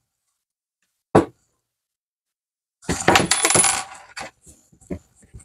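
Small metal hardware, a screw and screwdriver, clinking and rattling against each other and the tabletop as the screw is picked up and started: one sharp click about a second in, a clattering rattle with a high ringing note around three seconds in, then a few light taps.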